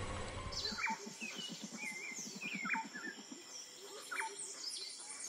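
Forest birds chirping and calling with short sharp notes and sweeping whistles. About a second in, a fast low pulsing call of roughly ten beats a second runs for about two seconds.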